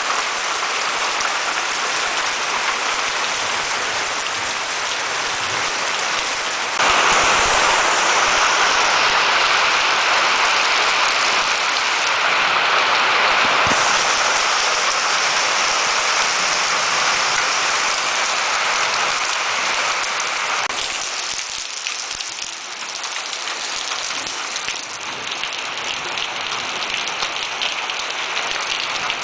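Rain falling steadily and pattering on surfaces, a dense even hiss that suddenly grows louder about seven seconds in and eases somewhat after about twenty seconds.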